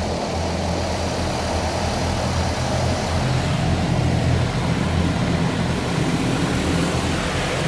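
Mark VII ChoiceWash XT in-bay car wash running, heard from inside the car's cabin: a steady low hum under the hiss of spray and foam hitting the glass and body. The spray grows louder about three seconds in.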